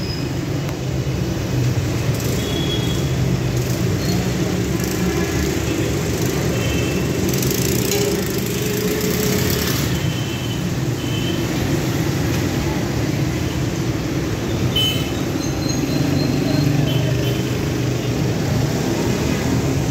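Steady low background rumble, with a louder hiss for a couple of seconds about eight seconds in.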